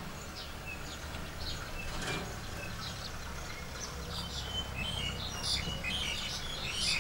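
Small birds chirping: many short, high calls, sparse at first and busier in the second half, over a low steady rumble.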